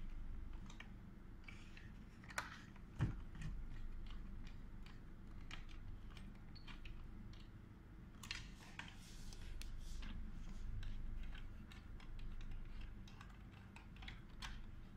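Scattered light clicks and taps of a metal star (Torx) key turning in screws and knocking on the plastic case of a Schneider Electric Compact NSX circuit breaker as it is closed up. The clicks come at irregular times, a couple of sharper knocks about two and three seconds in.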